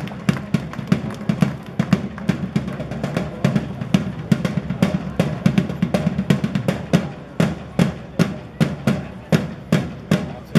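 Live drum ensemble playing a fast stomp-style percussion piece: dense, sharp drum strikes that settle into evenly spaced heavy beats in the second half.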